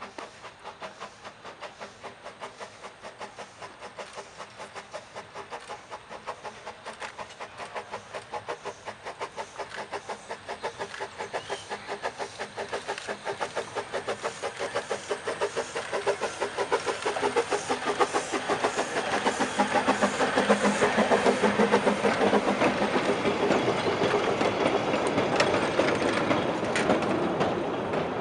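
Kerr Stuart Wren class narrow-gauge steam locomotive working a train, its exhaust chuffing in an even beat of a few strokes a second. The chuffing grows steadily louder as it approaches, is loudest about three quarters of the way through as it passes, then eases slightly.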